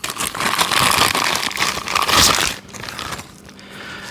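Packaging crinkling and rustling as a large 1-inch drive impact socket is handled and freed from its case, loud for the first two and a half seconds and then quieter.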